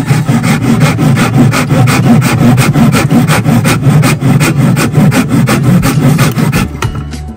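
A broad steel blade scraping quickly back and forth along a stick of reddish hardwood, about five strokes a second, wearing it down to fine dust. The scraping stops near the end.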